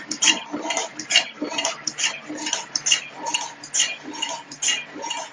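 LL 551+T automatic single-end wire cut, strip, twist and crimp machine cycling: a quick, even run of mechanical clacks, about three a second.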